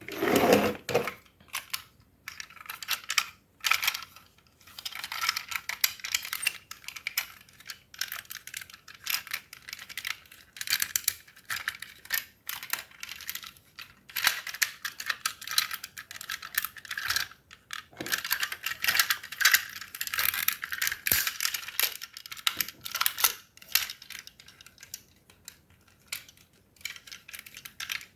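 Plastic toy parts clicking and rattling in quick, irregular runs, as toy robots are handled and moved.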